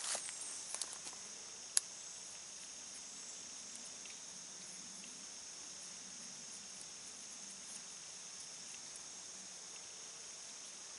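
Steady, high-pitched insect chorus. A few soft ticks of paracord being handled come in the first second or so, and one sharp click falls near two seconds in.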